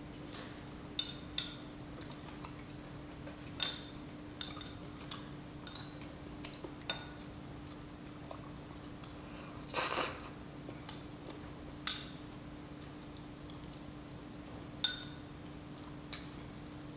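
Metal chopsticks and a spoon clinking against a glass bowl: about a dozen sharp, ringing clinks and taps, the loudest about a second in and near fifteen seconds in. A low steady hum runs underneath.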